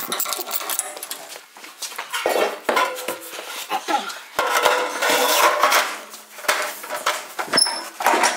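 Sheet steel clanking and rattling as a heavy 18-gauge panel is slid and set into a manual sheet-metal brake, with sharp metal-on-metal knocks from the brake and a brief ringing near the end.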